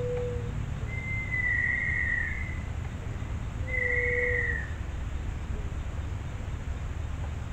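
Forest birds calling: two long, steady high whistles, and short low hoots repeating about every four seconds.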